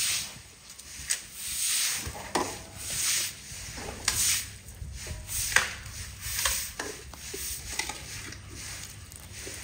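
Broom sweeping a wet concrete floor: rhythmic swishes about every second and a half, weaker over the last few seconds, with a few sharp knocks among them.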